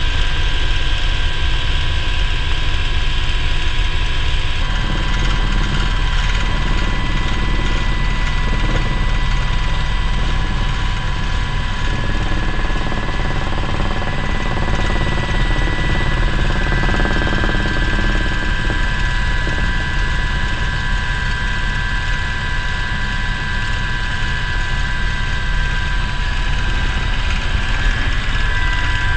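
Aérospatiale Alouette II helicopter in flight, heard from inside its cockpit: a steady whine from the turboshaft engine over the low, rapid beat of the main rotor.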